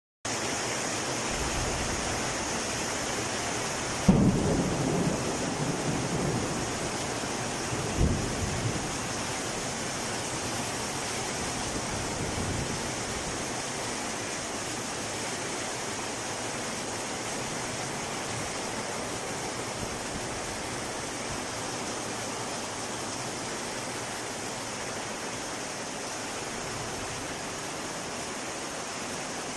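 Heavy rain pouring steadily in a thunderstorm. A sharp thunderclap sounds about four seconds in and rumbles on for a few seconds, a second crack follows about eight seconds in, and a fainter rumble comes around twelve seconds.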